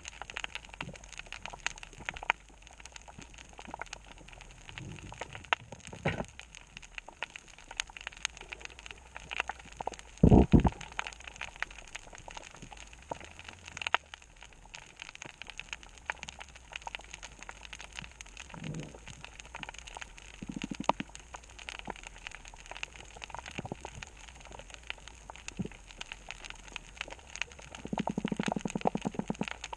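Underwater coral reef ambience: a constant crackle of sharp clicks, typical of snapping shrimp. A few louder low rumbles break through, the loudest about ten seconds in and a longer pulsing one near the end.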